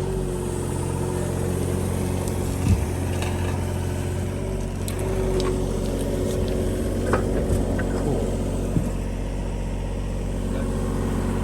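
An engine running steadily at a constant speed, with a few light clicks and knocks over it.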